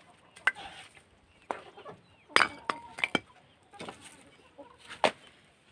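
Sharp wooden knocks and clacks of scrap boards and kindling pieces being handled and knocked together, about eight separate strikes at uneven intervals.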